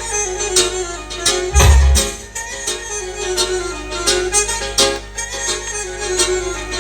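Music played loud through a mobile sound system's speakers: a melodic lead over a steady beat, with one heavy low bass boom about a second and a half in.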